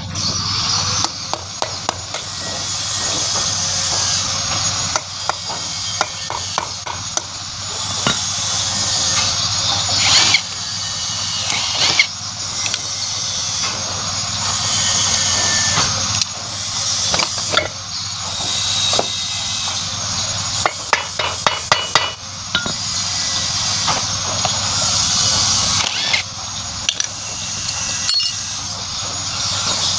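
An electric power tool runs on a motorcycle engine in repeated bursts, each a steady high whine that stops briefly every couple of seconds, with sharp clicks and knocks in between.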